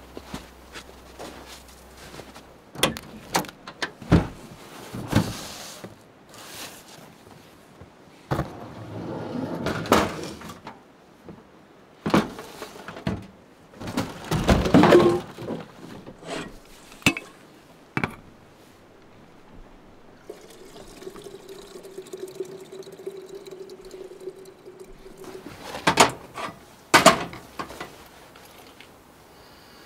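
Camp gear handled on a pickup tailgate: a series of clunks and knocks as a Coleman two-burner propane stove is set out and opened, with stretches of water pouring, and a steady hum for several seconds past the middle.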